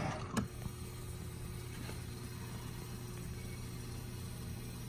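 Steady low electrical hum of a 1970s Junkyard coin-op crane game running as its claw is worked over the toy cars, with one sharp click about half a second in.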